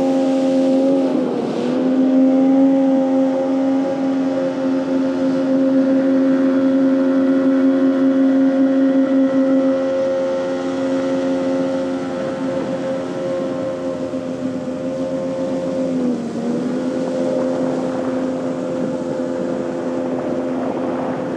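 Jet boat engine running steadily under way. The revs dip and recover about a second in, then dip again around sixteen seconds and settle a little lower.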